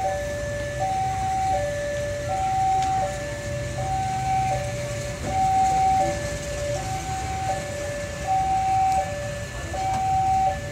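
Railway level-crossing warning alarm sounding two alternating electronic tones, high then low, repeating about every second and a half, over the low rumble of a passenger train rolling past.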